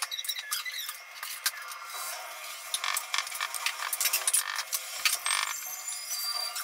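Kitchen handling sounds: small clicks and scrapes of glass shot glasses and utensils being set down and moved on a countertop.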